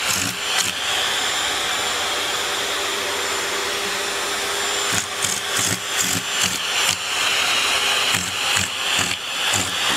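Vacuum cleaner running with a steady suction hiss and a high whine, its nozzle held to a cat that hugs and licks it. From about halfway through, the suction wavers with a run of irregular soft bumps and thumps as the nozzle is pushed against the cat's fur and paws.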